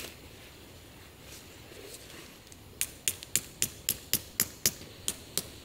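Flat pommel of a knife tapping a tent peg into the ground: sharp, evenly spaced strikes about four a second, starting about three seconds in.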